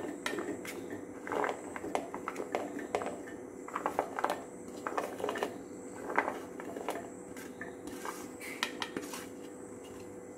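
Diced raw beetroot pieces tipped from a plate into a mixer-grinder jar, a hand pushing them off the plate: a run of light, irregular clatters and taps.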